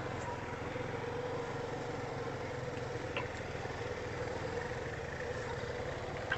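Four-wheeler (ATV) engine running at a steady pace, an even drone with a held tone and low rumble, with a couple of faint ticks about three seconds in.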